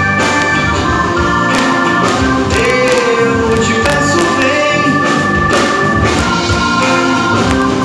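Live band playing a song: acoustic guitar, electric bass, drums, and a keyboard holding long chords.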